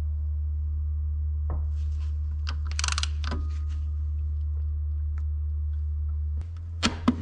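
Ratchet wrench tightening the clutch nut on a scooter's transmission: a few separate metal clicks and a short dense rattle of the ratchet about three seconds in. A steady low hum runs underneath and drops in level near the end.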